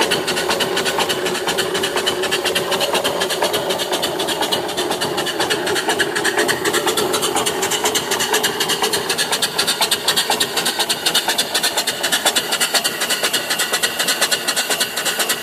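Live steam mill engine (box bed type, 3-inch bore by 4-inch stroke) running steadily on steam, its exhaust chuffing in fast, even beats.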